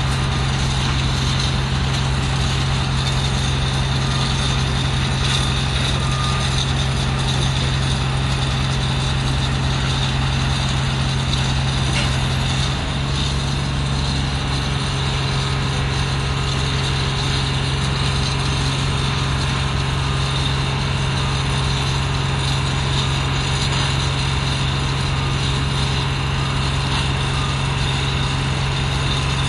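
Haulotte H21TX boom lift's diesel engine running steadily with a low, even drone while the boom is operated, the pitch and level dropping slightly about 13 seconds in.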